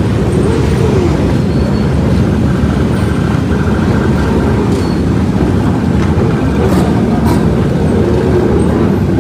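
Engines of a dense convoy of motorcycles running together in one loud, steady drone, with single engines rising and falling in pitch now and then.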